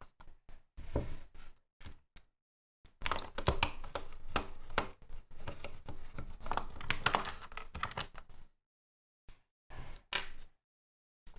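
Small clicks and scrapes of a screwdriver backing small screws out of the plastic mechanism housing of a DX Genesis Driver toy belt. The sound comes in several short stretches that cut off abruptly.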